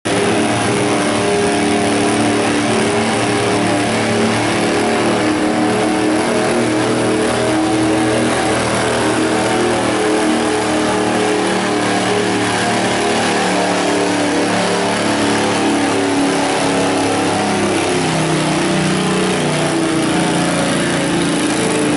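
Cub Cadet garden tractor's engine running hard under load while pulling a weight-transfer sled, a loud steady drone whose pitch sags slightly in the last few seconds as the load builds.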